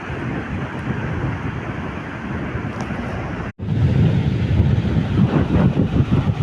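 Wind buffeting the microphone over the wash of sea waves. About three and a half seconds in, the sound drops out for an instant and comes back with a heavier, louder wind rumble.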